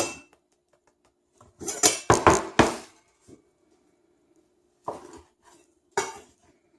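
Dishes and cutlery clinking and knocking in a kitchen: a knock at the start, a quick run of several clatters about two seconds in, and two more single knocks near the end.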